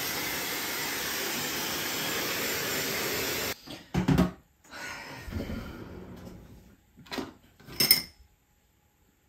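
Handheld hair dryer blowing steadily on wet hair, stopping abruptly about three and a half seconds in. A few short knocks and handling sounds follow.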